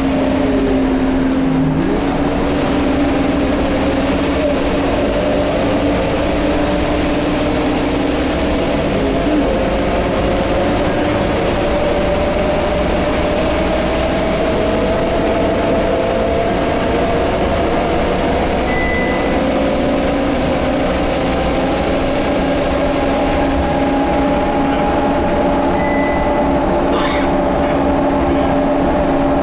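Scania K230UB Euro V bus under way, its running sound carrying a high whistle that rises, holds and fades near the end, over a lower whine that climbs slowly. The uploader takes these noises for the turbo and the hub reduction axle.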